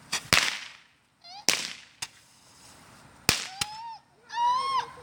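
Small fireworks going off in a string of sharp cracks, about six over the few seconds, each with a short echo. A child gives a high squeal near the end.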